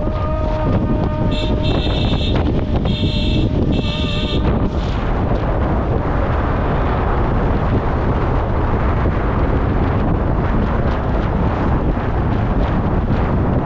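Steady road and wind rumble of a car on the move, with a horn sounding three times in the first few seconds over a held tone.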